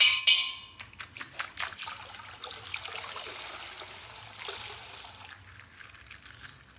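Crinkly plastic toy packaging being handled and opened: a run of many small crackles and rustles that thins out near the end.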